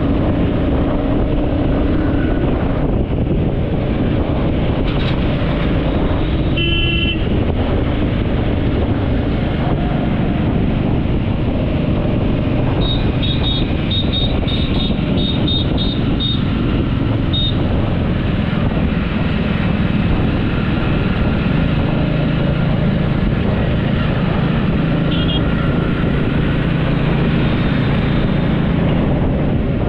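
Steady vehicle engine and road noise, with a horn sounding briefly about seven seconds in and a run of short high beeps between about thirteen and eighteen seconds in.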